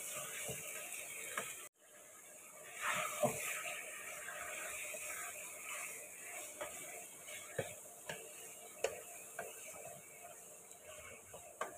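Raw chicken pieces frying in hot oil in a karahi, with a faint steady sizzle, while a wooden spatula stirs them, scraping and knocking irregularly against the pan.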